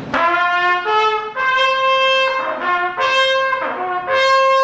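Shofar blown in several short blasts that jump between notes and break off, then a long held note starting near the end.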